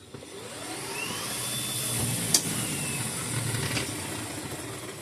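1996 EZGO Medalist electric golf cart driving under power: its drive motor whine rises in pitch as it speeds up, holds, then falls away as it slows, with a sharp click midway. The cart moves again now that the stripped left rear hub has been replaced.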